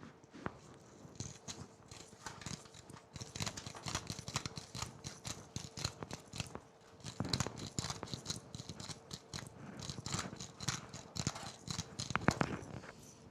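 Pepper mill being ground over a pan, a long run of rapid, uneven crackling clicks, with a faint steady hum underneath.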